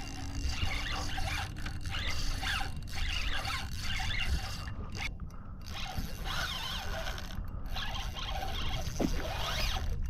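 Spinning reel, a Shimano Sustain 4000, being worked while a hooked fish is fought: a scraping mechanical whir from reel and line, with short whines that rise and fall.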